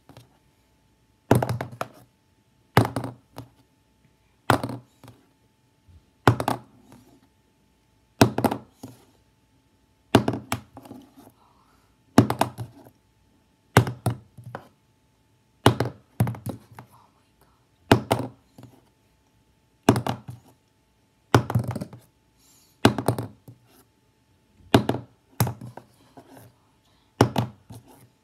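A plastic highlighter being flipped and landing again and again, a short impact about every one and a half to two seconds; some landings bounce with a quick second strike.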